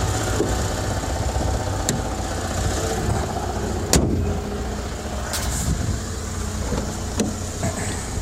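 2008 Mitsubishi Eclipse engine running, heard from inside the cabin, with a steady low hum and a few sharp knocks, the loudest about four seconds in. The owner reports a banging that appears whenever the clutch is let out and grows with RPM.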